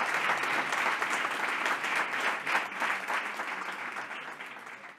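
Audience applauding: dense clapping that thins and fades away over the last couple of seconds.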